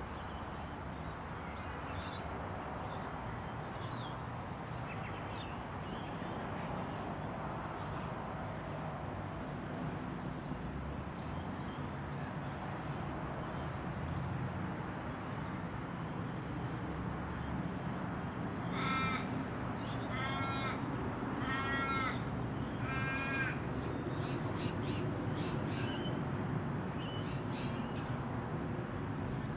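A bird gives four loud calls in a row, each about a second and a half after the last. Faint chirps of smaller birds and a steady low outdoor rumble run beneath them.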